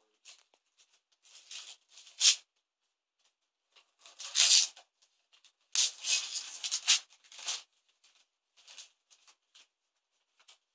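Wrapping paper being torn off a small gift box by hand, in several short bursts of tearing and rustling with pauses between, the longest stretch about six seconds in.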